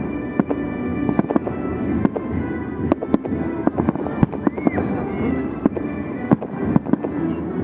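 Fireworks salute: shells bursting in a rapid, irregular string of sharp bangs, several a second, with music playing alongside.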